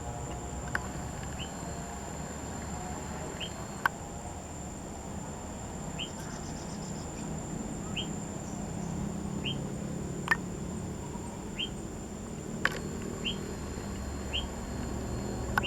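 Short, high whistle-like chirps from an unidentified cave animal, each a quick upward-sliding note, repeating irregularly about once every second or so; the uploader takes the caller for a reptile. Under them runs a steady thin high whine, and there are a few sharp clicks.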